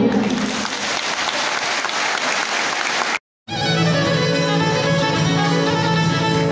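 Audience applauding for about three seconds. The sound then cuts out for a moment, and a folk band with fiddles strikes up, playing over a steady low note.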